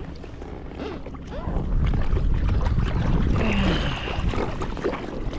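Wind rumbling on the microphone, louder in the middle stretch.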